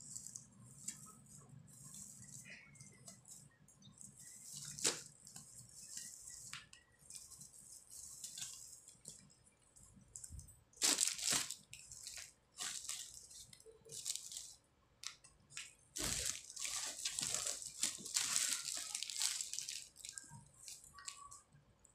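Rustling of an artificial pine garland's plastic needles as it is handled and shaken out over cardboard, in irregular bursts, loudest about halfway through and through the last few seconds.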